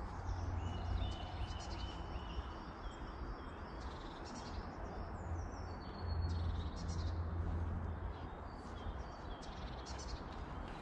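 Woodland birds chirping, with short repeated calls and a few gliding notes, over a low rumble on the microphone that swells about a second in and again around six to eight seconds.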